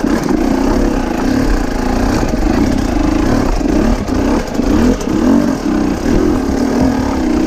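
Dirt bike engine revving unevenly, its pitch rising and falling about once a second as the throttle is worked on a rough creek-bed climb.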